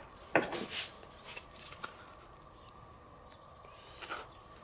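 Handling noises at a work table: a sharp knock about half a second in, then a few light clicks and rustles, and another short rustle near the end.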